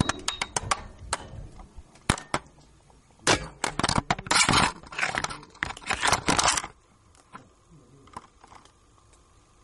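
A camera being lowered down a deep ventilation shaft knocking and scraping against the shaft wall: irregular clicks and crunching scrapes, thickest in a dense run in the middle, then dying away near the end.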